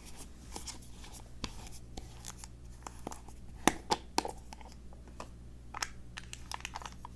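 Hands handling a glass jar at close range: scattered small clicks, taps and light rustling, with a few sharper clicks in the middle.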